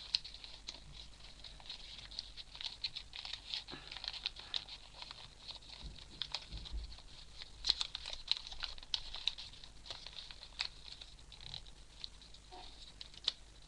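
Paper rustling and crinkling in the hands as origami flaps are folded and tucked into pockets, an irregular run of small scratches and taps.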